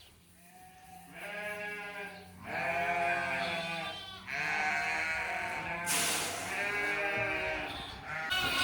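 Sheep bleating: several long bleats one after another, starting about a second in.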